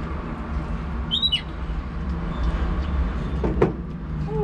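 A short, high falling chirp about a second in, then a single sharp knock about three and a half seconds in, over a steady low hum.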